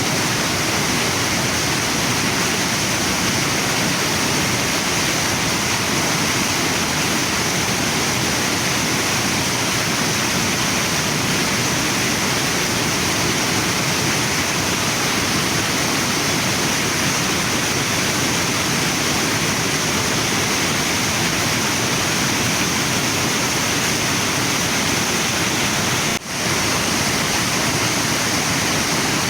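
Waterfall and river water rushing in a steady, even wash of noise. The sound dips briefly for a split second near the end.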